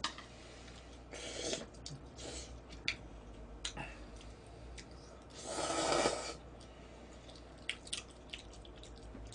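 Ramen noodles slurped from a bowl in three short rushes, the longest and loudest about six seconds in, with a few light clicks of chopsticks against the bowl in between.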